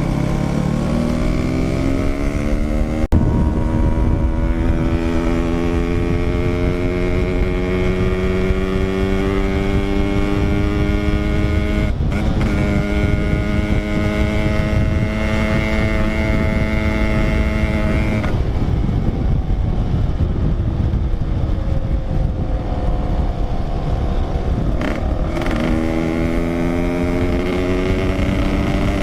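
Yamaha RX-King 135 cc two-stroke single-cylinder motorcycle engine running under way: it rises in pitch as it accelerates over the first few seconds and holds a slowly climbing cruise, drops off about two-thirds of the way through, and climbs again near the end. Wind rumble on the microphone runs underneath.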